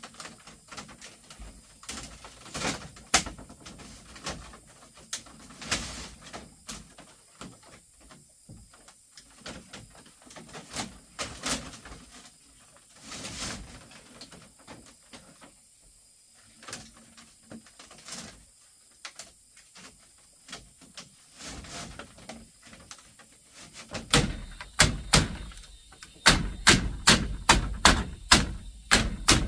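Scattered knocks, clatters and taps of hand work on wood and bamboo, then near the end a fast, steady run of loud tool blows, about three a second.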